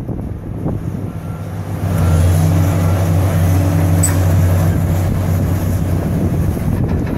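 Demolition excavator's diesel engine revving up about two seconds in and holding a steady, loud note as the hydraulic arm works the building.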